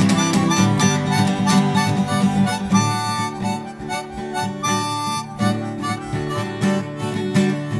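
Instrumental break: a harmonica playing long held notes over strummed acoustic guitar.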